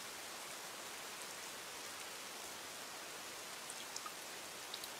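Faint, steady rain hissing evenly, with a few light drip ticks in the second half.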